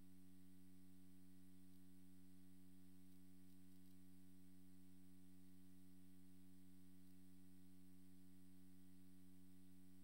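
Near silence with a steady, low electrical hum made of several evenly spaced tones, unchanging throughout: mains hum from the sound system or recording chain.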